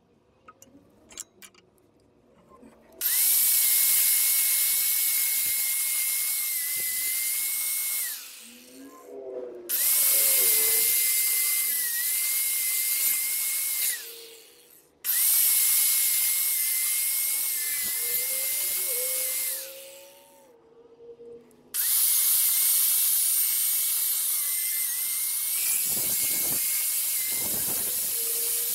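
Electric angle grinder with a wire wheel scrubbing rust and grime off a stump grinder's steel cutter wheel, cleaning it for new teeth. It runs in four bursts of several seconds each, starting about three seconds in, with a steady high whine that falls away each time the grinder is let off.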